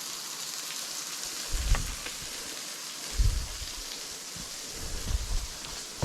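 Waterfall: a steady hiss of falling water, with a few short low rumbles on the microphone, the first about a second and a half in.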